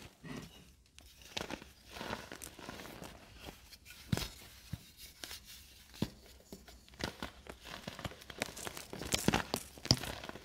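Hardened baking soda reforms, left to dry for over a week, crunching and crumbling as they are squeezed and crushed by hand. The crunch comes in irregular crackles with a few sharp cracks, the loudest near the end.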